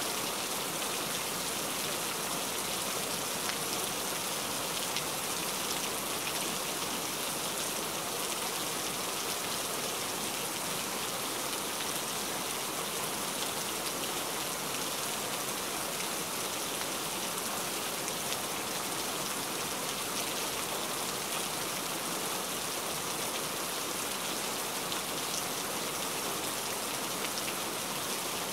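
Steady rain: an even, unbroken hiss of falling rain, with a faint fine ticking of individual drops.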